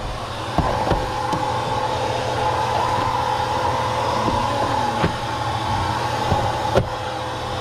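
A steady drone with a low hum runs throughout, and a few light clicks sound over it, fitting screws rattling in small plastic organizer bins as they are handled.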